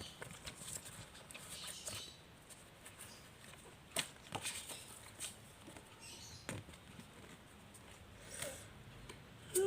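Laminated plastic photocards being handled and shuffled: soft rustling with a few sharp clicks and taps, the loudest about four seconds in and just before the end.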